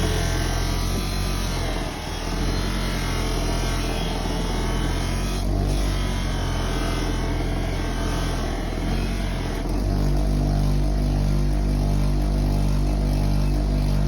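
Bench grinder with buffing wheels running steadily as a kukri blade is buffed along its bevel with green compound, which removes the burr left by the belt grinder. A higher rushing sound over the motor hum falls away about ten seconds in, leaving the steady hum.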